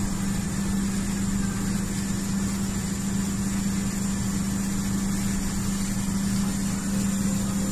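Steady deep machinery hum with one strong low drone that does not change, from a ship's engines heard in the galley.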